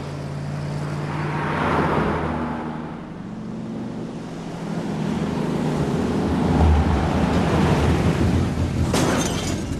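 A delivery van driving along a street: its engine running with tyre and road noise. The sound swells about two seconds in and again toward the end.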